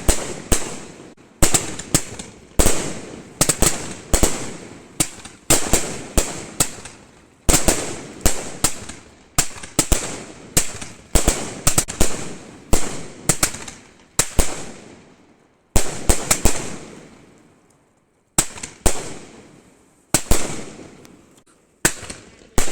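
A 100-shot aerial firework cake firing shot after shot: sharp launch thumps and bursting bangs, one or two a second, each trailing off in crackle, with a few brief pauses between volleys.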